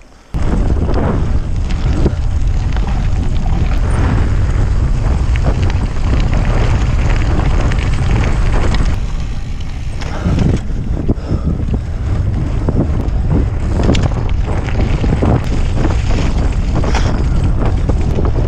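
Wind buffeting the microphone of a camera on a bicycle riding over gravel, with the rumble and rattle of tyres and bike on the rough track underneath. It eases briefly about nine seconds in, then picks up again.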